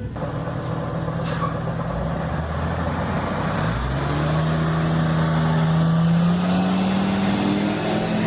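A large road vehicle's engine, likely a bus, idling steadily, then its pitch rises gradually from about four seconds in as it revs and pulls away.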